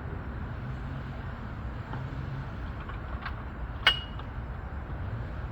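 A single sharp metallic clink with a brief ringing tone about four seconds in, preceded by a fainter tap, over a steady low background rumble.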